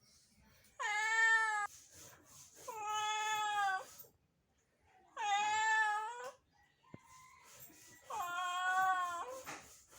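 A domestic cat meowing four times, each meow long and drawn out, about a second or more, with gaps of one to two seconds between them.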